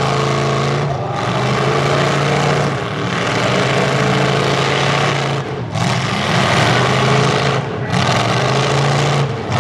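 Demolition derby trucks' engines running loud and revving, with the level dipping briefly several times as throttles are let off.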